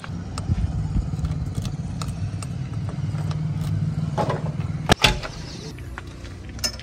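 Key turning in the lock of a JCB 3DX backhoe loader's cab door, then the door latch clicking open, with two sharp clicks about five seconds in and a lighter click near the end. Under it, the low rumble of an engine running nearby, which fades out shortly after the clicks.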